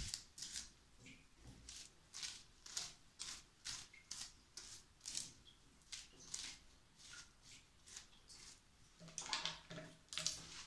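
Plastic hairbrush stroking through a wet, shampoo-lathered curly wig, a soft swish about twice a second. Near the end the wig is squeezed in the sink water with a wet squelch.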